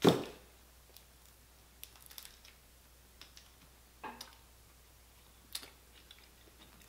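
Boiled crawfish shells being cracked and peeled by hand: one loud sharp crack at the start, then scattered faint clicks and crackles of shell.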